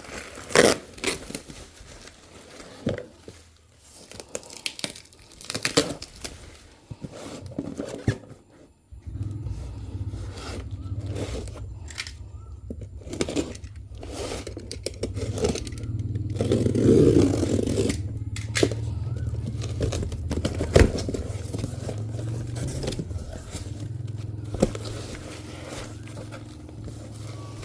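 Packaging being handled and opened: plastic crinkling, tearing and scraping in irregular bursts, with a steady low hum coming in about nine seconds in.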